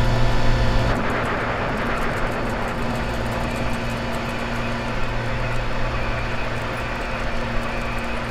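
Large machinery running: a steady low mechanical hum with several fixed tones, and a rushing hiss that joins about a second in.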